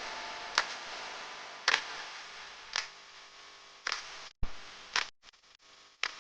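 Slow, even ticking, about one tick a second, over a faint hiss that fades away.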